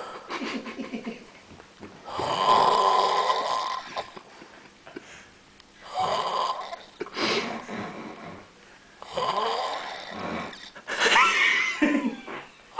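A sleeping person snoring loudly, about four long snores a few seconds apart, the last with a sliding whistle in it.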